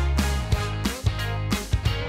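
Background music: an upbeat guitar-led track with a steady beat.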